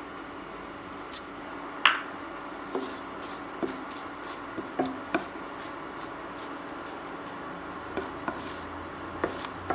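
Mustard seeds, cumin seeds and curry leaves sizzling in hot oil in a pan, a steady hiss with two sharp clicks in the first two seconds, then many irregular sharp pops and splutters from about three seconds in as the curry leaves go in, with a wooden spoon stirring.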